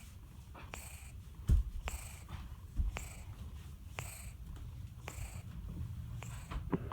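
Sleeping house cat snoring: a soft breathy sound with a high whistle about once a second. Two low thumps come about a second and a half in and again near three seconds.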